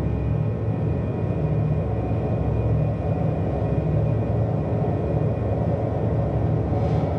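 Low, steady rumbling drone with an uneven throbbing in the bass, part of the performance's electronic soundtrack.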